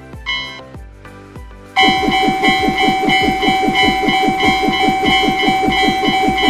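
Railroad crossing warning bells ringing. At first a slower ding repeats about one and a half times a second; about two seconds in, a louder, faster crossing alarm takes over with a rapid, steady string of strokes.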